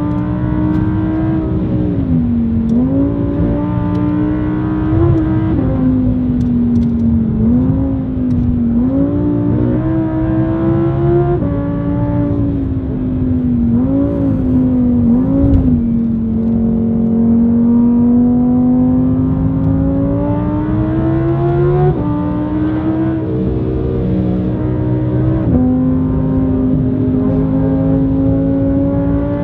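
Audi R8 V10's naturally aspirated 5.2-litre V10 through an aftermarket ASG valve exhaust, heard loud from inside the cabin while driven hard. The revs climb and drop again and again with sudden falls, with one long climb in the middle before a sharp drop.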